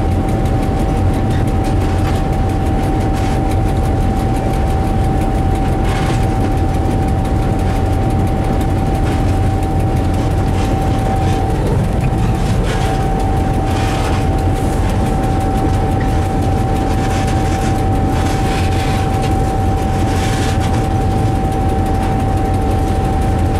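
Diesel locomotive running steadily under way, heard from inside its cab: a low engine drone with a steady high whine throughout, and a few brief knocks of the wheels over the track.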